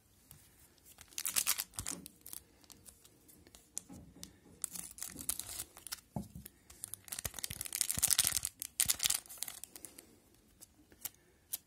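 A 2001/02 Pacific Adrenaline hockey card pack wrapper crinkling as it is handled, then being torn open. The longest, loudest tearing comes about seven to nine seconds in.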